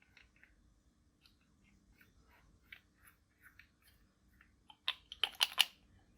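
Clear slime being pressed and worked by hand, giving scattered small sticky crackles, then a quick run of louder pops and clicks near the end.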